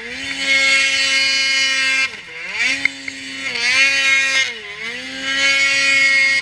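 Ski-Doo Freeride 800's two-stroke Rotax 800R E-TEC twin revving high and steady under throttle. Its pitch drops off sharply about two seconds in and again around four and a half seconds as the throttle is eased, then climbs back each time.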